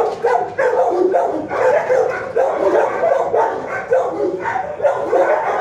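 Dogs in a shelter kennel block barking, a constant overlapping chorus of barks and yips with no pause.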